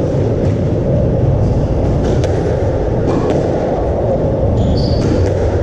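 A squash ball knocked about in a rally: a few sharp knocks of racket strikes and the ball hitting the walls, over a loud steady low rumble.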